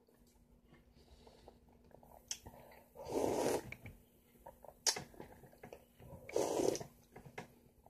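Two loud wet slurps of melon juice sucked from the rim of a yellow honeydew rind, about three seconds apart, with a single sharp click between them.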